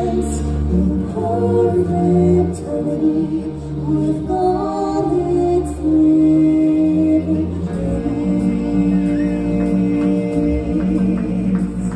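A stage performer singing into a microphone over musical accompaniment, holding long notes.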